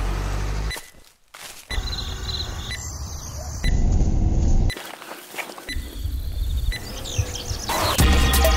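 Short outdoor sound snippets cut abruptly one after another: low rumbles and a few high chirps, with music starting loudly near the end.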